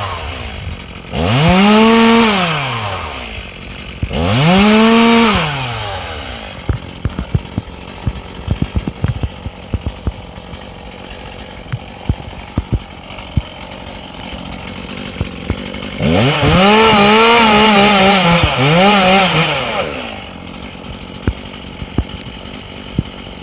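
Two-stroke chainsaw revved up and let drop back twice in quick succession, then idling for several seconds with scattered sharp ticks and cracks, then held at high revs for about four seconds, with a brief dip, before falling back to idle.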